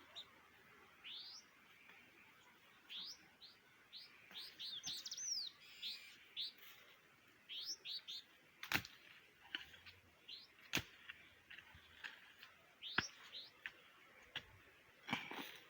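Small birds chirping: many short high chirps in quick runs, thickest in the first half. Several sharp knocks, about two seconds apart, come in the second half.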